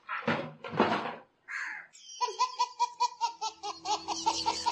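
A baby belly-laughing in a rapid run of high, pitched laugh pulses, several a second, starting about two seconds in. Before it come two short breathy vocal bursts from a woman.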